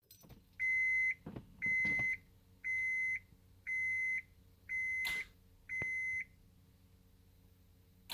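Car warning chime beeping six times in a steady, high-pitched pattern, about one beep a second, with a few clicks among the beeps and one sharp click near the end.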